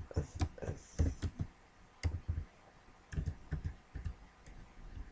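Computer keyboard being typed on: irregular runs of keystroke clicks with short pauses between them, as code is entered.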